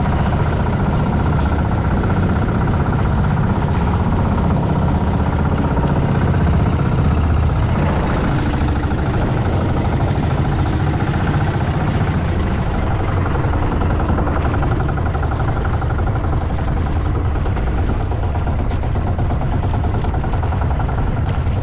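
Boat engine running steadily at an even speed, heard from on board.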